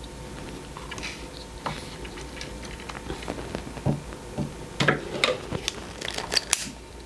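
Scattered small clicks, taps and scrapes of hands working with wires and small tools, busiest and sharpest in the second half.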